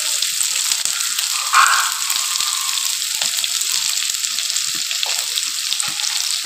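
Sliced shallots, garlic, ginger and green chillies sizzling in hot oil in a pan, with popped mustard seeds, fenugreek and dried red chillies: a steady hiss full of fine crackles, with a brief louder spurt about a second and a half in.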